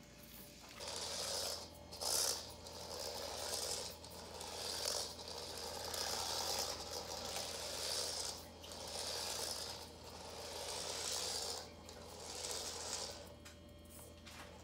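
Micro 1/64-scale RC car's tiny N10 motor and gear train buzzing and rattling in repeated bursts of throttle, each a second to a few seconds long, as the car drives about.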